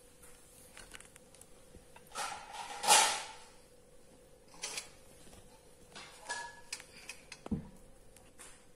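Scattered faint knocks, clicks and rustles of things being handled in a kitchen, over a faint steady hum. The loudest is a scraping rustle about three seconds in, and there is a dull thump near the end.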